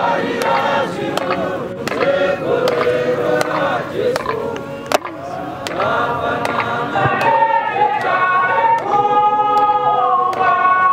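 A large congregation singing a Shona hymn together, many voices on slow notes held about a second each.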